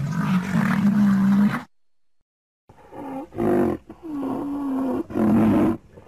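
Rhinoceros calling: one long, low, steady call of about a second and a half, then after a short pause four shorter calls, the third held for about a second.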